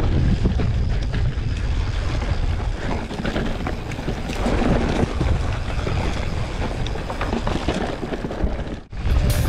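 Wind rushing over the microphone with a low, steady rumble while riding a mountain bike along a trail. The sound drops out sharply for a moment near the end.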